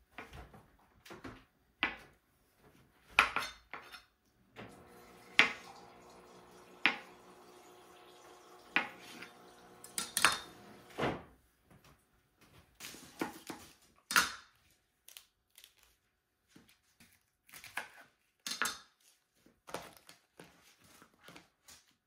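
Kitchen prep: a chef's knife cutting through a block of tofu and knocking on a plastic cutting board, with scattered clinks and knocks as ingredients are handled in a ceramic dish and set on the board. A steady hum runs underneath from about four seconds in until about eleven seconds.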